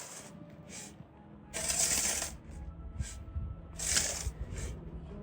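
Gravel crunching and scraping in a few short, irregular bursts, the longest about a second and a half in.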